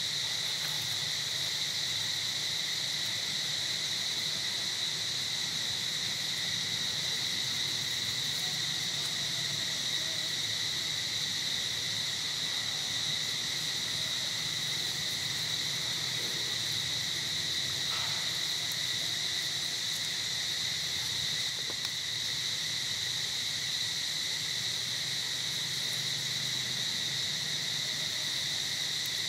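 Steady, unbroken high-pitched drone of insects in the forest, holding one level throughout.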